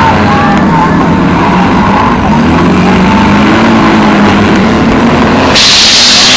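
Several demolition derby cars' engines revving hard at once, their pitch rising and falling over a dense rumble. Near the end, a loud steady hiss cuts in suddenly.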